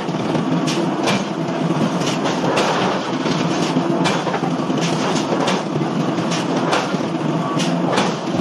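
A power forging hammer working a red-hot steel block, with sharp blows falling unevenly about one or two a second over a steady machine rumble.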